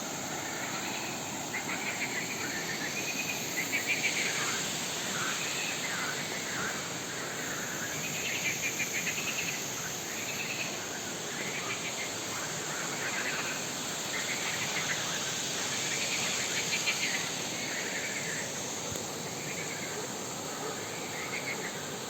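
Insects calling: a steady high drone with short pulsed chirps repeating about once a second.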